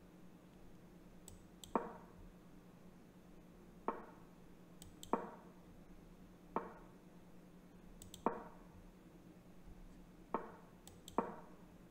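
Chess.com's digital move sound, a short wooden click as each piece is placed, about seven times at uneven intervals of one to two seconds during a fast blitz time scramble. Fainter high double ticks come before some of the moves.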